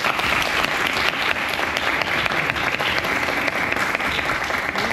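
A room full of people applauding, a steady patter of many hands clapping.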